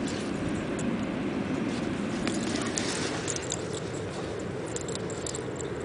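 Dog digging in beach sand, paws scratching and flicking sand in a scatter of small ticks and scrapes, over a steady rush of wind or surf.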